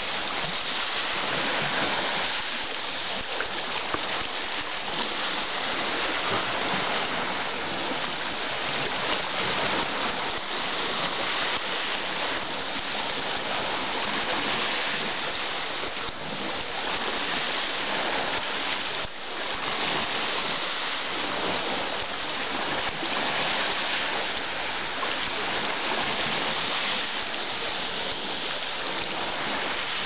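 Black Sea water washing over a stony shore: a steady hiss of surf that swells and eases a little from moment to moment, with two brief lulls in the second half.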